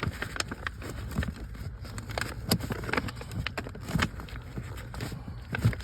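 Irregular light clicks and knocks of tools and plastic parts being handled, over a low steady rumble.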